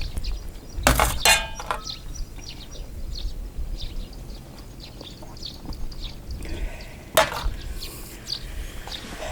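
Hard objects knocking and clinking together, twice about a second in (the second with a brief ringing tone) and once more, sharply, near the end. Under them runs a low wind rumble on the microphone, with scattered faint chirps.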